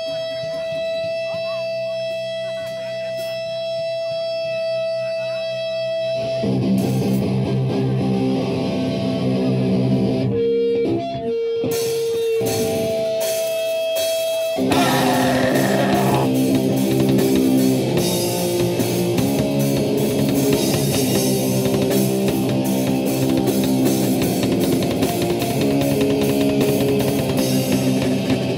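Distorted electric guitar in a heavy punk/metal song: a held, ringing note at first, then chugging riffs from about six seconds in. Drums and cymbals join about fifteen seconds in, and the full band plays on at a fast pace.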